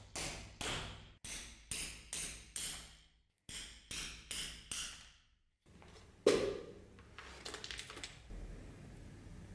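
Hammer tapping a steel pin punch to drive the old copper rivets out of a shashka blade's tang on a vise's anvil: quick ringing metal strikes, about three a second. About six seconds in there is one louder knock, then a brief clatter of small metal pieces.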